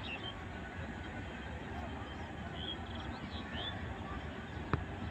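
Outdoor ambience: a steady low rumble with a few short bird chirps now and then, and a single sharp click near the end.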